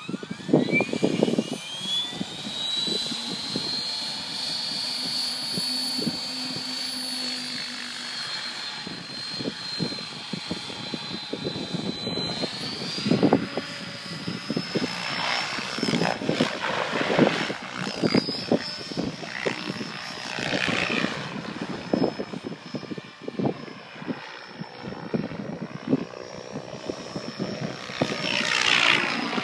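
Electric Mikado Logo XXtreme 800 RC helicopter spooling up: the motor and rotor whine rises steeply over the first few seconds, then holds steady and steps up slightly in pitch about twelve seconds in. Gusts of wind buffet the microphone throughout, and the rotor sound swells near the end as the helicopter comes closer.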